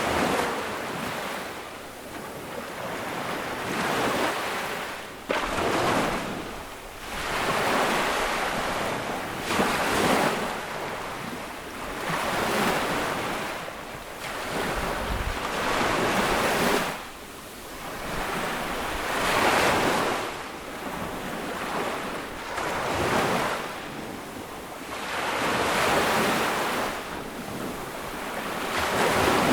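Small ocean waves breaking and washing onto a sandy beach, the surf hiss swelling and ebbing every two to three seconds, with some wind on the microphone.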